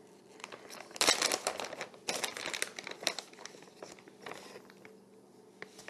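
Plastic bag of Craisins dried cranberries crinkling in bursts as it is handled and tipped over a bowl, starting about a second in and fading near the end.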